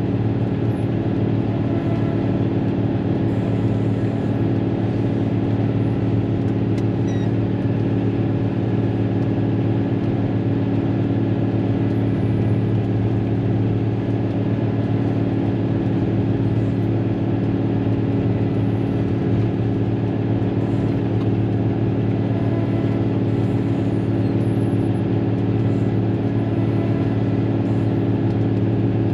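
Caterpillar motor grader's diesel engine running steadily, heard from inside the cab.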